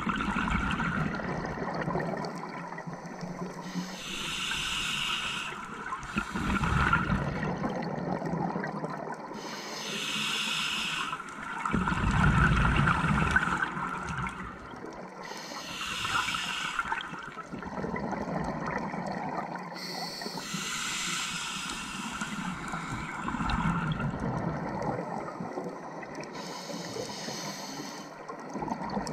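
Scuba diver breathing through a regulator underwater: a hiss on each inhale, then a low gurgling rumble of exhaled bubbles, repeating about every six seconds.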